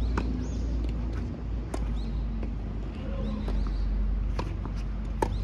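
Tennis ball being hit by rackets and bouncing on a hard court in a rally: several sharp pocks about a second or more apart, the loudest near the end, over a steady low rumble.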